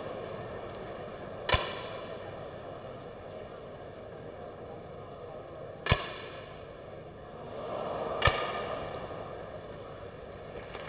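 Three 10m air rifle shots, sharp cracks about four and a half seconds and then two and a half seconds apart, over a steady low background hum.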